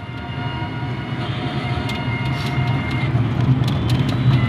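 Small motor vehicle's engine running steadily while driving, heard from on board, with a faint whine and a few light rattles.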